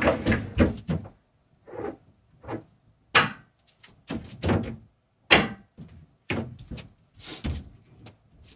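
Wooden knocks and thuds from a wooden box-bed unit being handled and taken apart, a string of separate blows with two sharp loud knocks about three and five seconds in.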